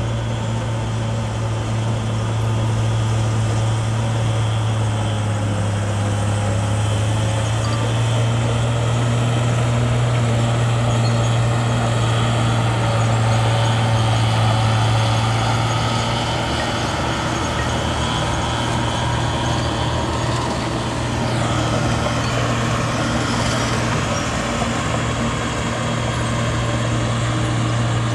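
Bulldozer's diesel engine running steadily with a strong low drone while the machine works gravel.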